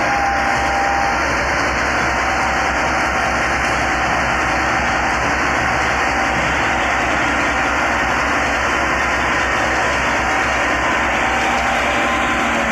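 Two farm tractors' diesel engines running hard together under heavy load as they drag a fully loaded sugarcane trolley through soft field soil. The sound is loud and steady, with no changes in pace.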